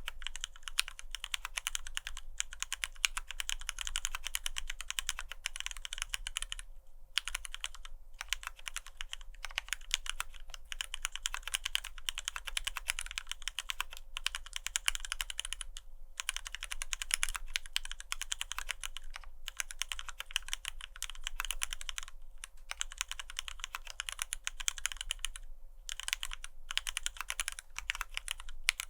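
Continuous fast typing on an F1-8X custom mechanical keyboard: retooled Cherry MX Black linear switches lubed with Krytox, and dye-sublimated PBT keycaps clacking on each stroke, with a few short pauses. A faint steady hum sits underneath.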